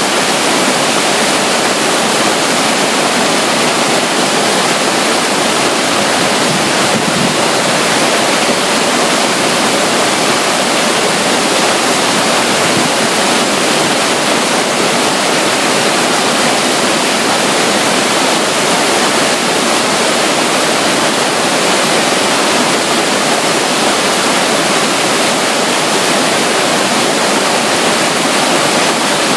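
Steady, even rush of running water from a small water flow beside a river near a waterfall.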